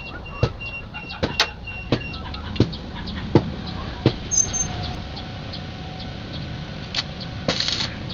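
Irregular sharp knocks and taps, several in the first half and sparser later, over a steady low background noise.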